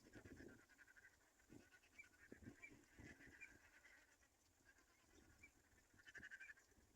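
Black-winged kite chick calling: a faint, rapid raspy chatter, louder at the start and again near the end, with a few soft low thumps.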